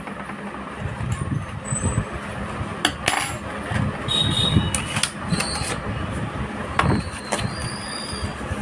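Scattered clicks and short metallic clinks from handling a 2.5-inch SATA SSD and metal computer-case parts, over a low background rumble.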